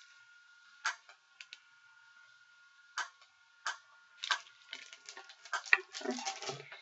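Scattered sharp clicks and crackles of a paper leaflet and plastic snack wrapper being handled, a few isolated ones at first and quicker ones near the end, over a faint steady high whine.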